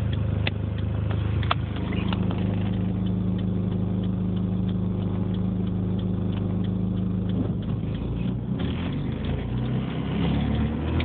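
2005 Dodge Neon idling with a horrible low thrumming noise that seems to surge, the fault the owner is chasing. About seven to eight seconds in, the steady drone breaks up and wavers.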